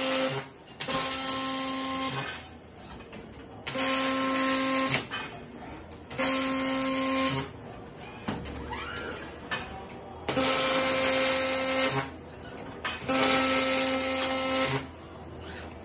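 Robotic MIG welding arc from a Fanuc Arcmate 100iD robot on a Lincoln R450 welding power source, laying a series of short welds. There are five welds, each a buzzing hiss with a steady hum under it, lasting about one and a half seconds, with quieter pauses between them as the torch moves to the next spot.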